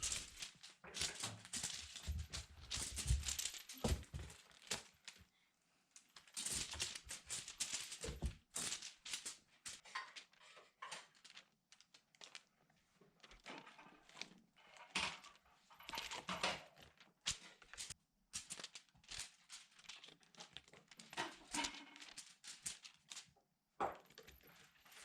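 A cat moving about and playing: irregular rustling, scratching and light tapping, with short pauses.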